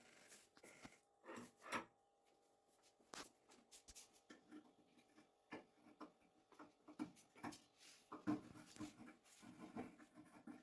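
Faint, irregular light knocks, clicks and scraping, as of objects being handled and moved, with sharper knocks about two seconds in and again about eight seconds in.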